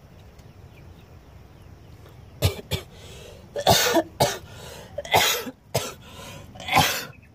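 A person coughing: a run of about seven coughs, some close together in pairs, beginning about two and a half seconds in.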